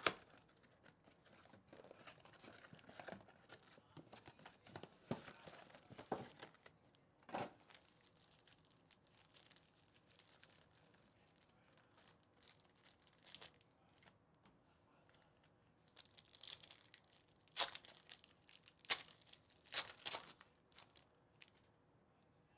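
Plastic shrink wrap and trading-card pack wrappers torn open and crinkled by hand, in scattered short faint bursts of tearing and crinkling.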